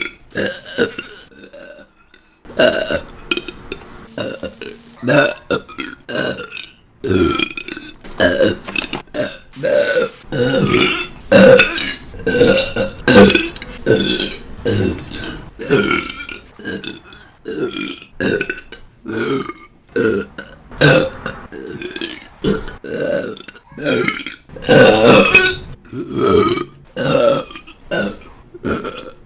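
A woman burping over and over, a rapid string of short burps one after another, with the loudest and longest burp about 25 seconds in.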